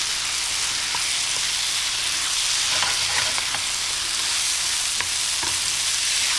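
Chopped tomatoes, onion and ground spices sizzling in a frying pan, stirred with a wooden spoon that now and then taps and scrapes against the pan.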